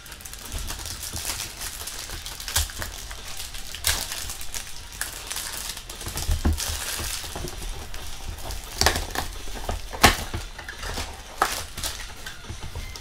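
Crinkling of plastic card-pack wrappers and trading cards being handled, with scattered sharp clicks.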